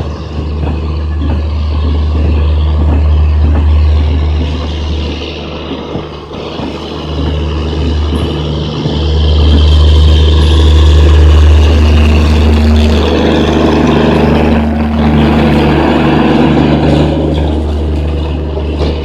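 A heavy engine running, with a loud, steady low rumble; a humming engine tone grows stronger about two thirds of the way in.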